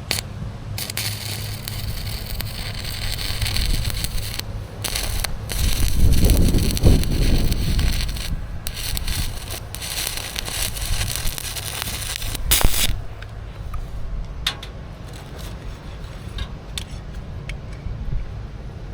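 Arc welding on steel plate: a loud crackling hiss in several runs with short breaks, stopping about two-thirds of the way through, over a steady electrical hum. Scattered light clicks and taps follow.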